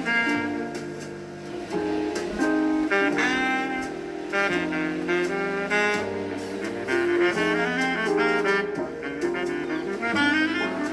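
Background instrumental music: a melody line of changing notes over sustained chords.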